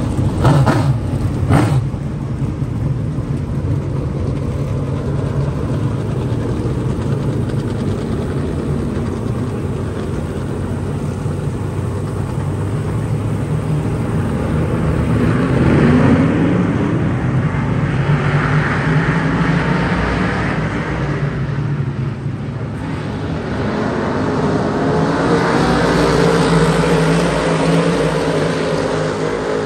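Dirt modified race car engines running continuously, swelling louder several times in the second half as cars accelerate or pass. A few sharp knocks sound in the first two seconds.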